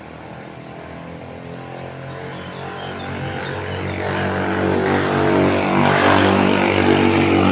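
An engine drone with a steady pitch, growing gradually louder over several seconds and loudest near the end, as something motorised approaches.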